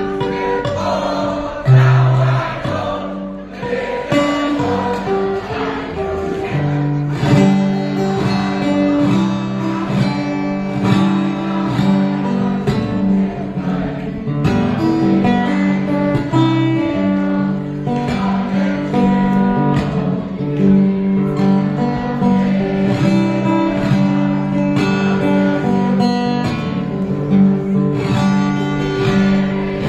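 Acoustic guitar played fingerstyle: the school anthem, a picked melody over a steady bass line.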